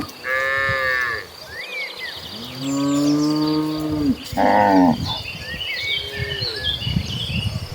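Several cattle in a herd mooing in turn: a short high moo at the start, a long low moo about two seconds in, then a loud one midway and a fainter one after it.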